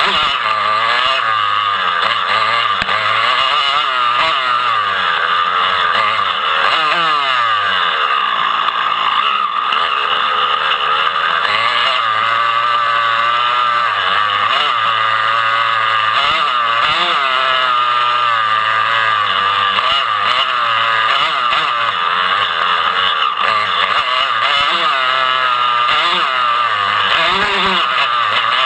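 Several dirt-bike engines running hard, their pitch climbing and dropping over and over as the riders rev up and shift.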